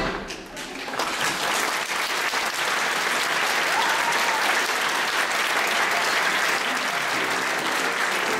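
Audience applauding, a dense steady clapping that starts about a second in as the music ends. Music starts up again faintly under the clapping near the end.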